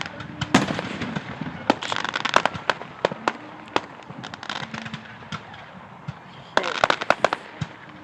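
Fireworks going off: clusters of rapid sharp pops and crackles about half a second in, around two seconds in and again near the end, with scattered single bangs in between.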